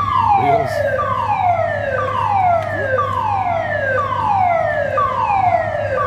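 Supermarket evacuation alarm sounding: a loud siren tone that falls in pitch and repeats about once a second without a break.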